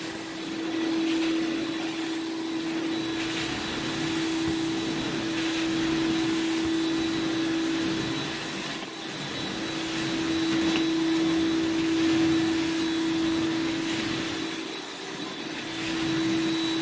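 Portable carpet extractor's vacuum running as the floor wand is drawn across the carpet: a steady motor tone under rushing suction that swells and dips every few seconds with the strokes.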